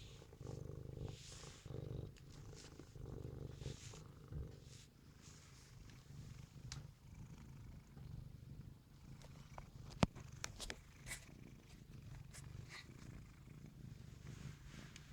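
Domestic cat purring close to the microphone, a steady low pulsing rumble, with brushing noises as it rubs its face against the camera. A sharp tap about ten seconds in.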